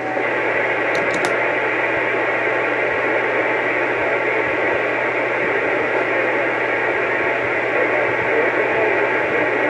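Steady hiss of static from a CB radio's speaker, with a low hum under it, as the radio receives an open channel.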